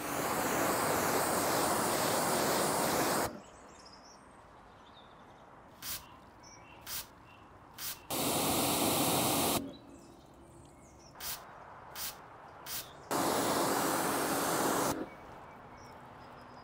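Pressure washer jet spraying water onto a car, in three blasts of a few seconds each that start and stop abruptly. Between them come six short squirts of a hand trigger sprayer applying ceramic spray coating.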